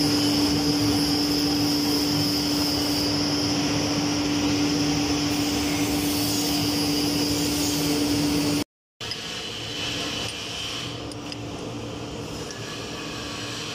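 Lathe running steadily, turning a five-start worm in mesh with its worm gear in a trial run: a steady hum with a high whine over it. After a cut about nine seconds in, a quieter, steady machine hum.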